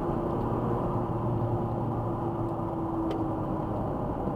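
Steady low engine rumble with a faint held tone that fades out near the end.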